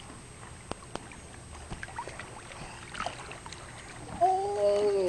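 Pool water sloshing and splashing lightly, with scattered small clicks. Near the end a high voice holds a short vowel for about a second, dropping in pitch as it stops.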